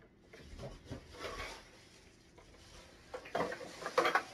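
Thin plastic bag rustling and crinkling as it is handled, with light knocks from an object being lifted out. The sharpest crinkling comes near the end.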